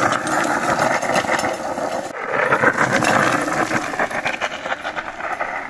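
Electric off-road scooter's rear wheel spinning on loose gravel, grinding and spraying stones in a dense crackle. There is a short break about two seconds in, and the sound dies away at the very end.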